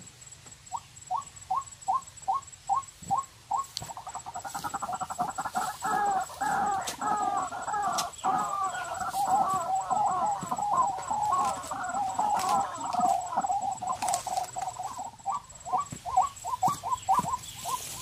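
Recorded rail call played as a bird-trap lure through a small portable speaker: a run of evenly spaced clucking notes, about three a second, that swells into a dense, fast chattering chorus, then goes back to the evenly spaced notes near the end.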